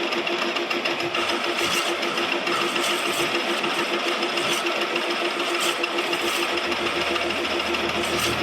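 Lathe running steadily, its hum pulsing evenly about five times a second over a steady hiss.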